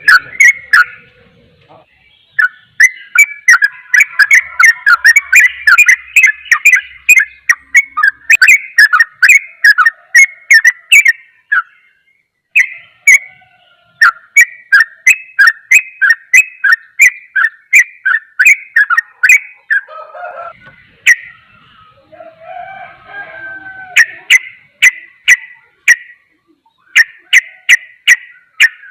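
Yellow-vented bulbul (trucukan) singing a fast, continuous 'ropel' chatter: long runs of quick, sharp, bright notes several per second, broken by short pauses. A fainter, lower call comes in behind it about two-thirds of the way through.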